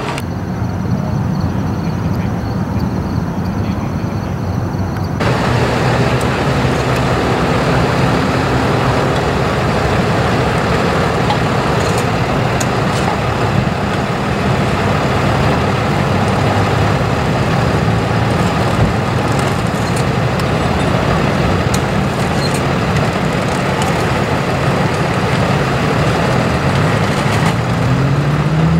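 Tow truck engine running steadily: a continuous low drone, with road traffic noise. A broader hiss joins about five seconds in.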